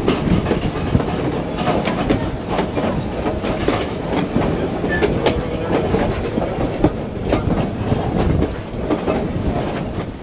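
Passenger train running along the track: a steady rumble of wheels on rail with frequent sharp clicks and clacks.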